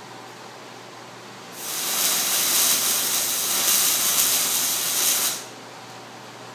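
A steady, loud hiss lasting about four seconds that starts quickly and cuts off sharply.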